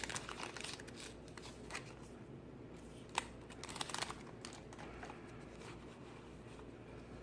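Faint, scattered rustling and crinkling of a Pokémon booster pack's foil wrapper and the cards inside being handled, with a few soft clicks, the clearest about three and four seconds in.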